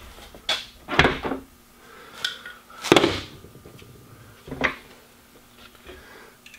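A handful of sharp clicks and knocks as the rear flip-up glass of a Ford Escape hatch is unlatched and lifted and its gas struts are handled, the loudest knock about three seconds in.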